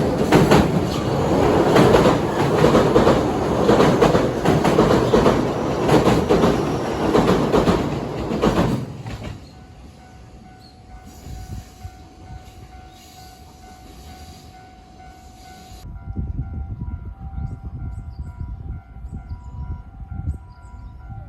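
A train passes close by with loud rail noise, which stops abruptly about nine seconds in. Then a railway level-crossing alarm keeps sounding in repeated electronic tones, and a low rumble comes back in the last few seconds.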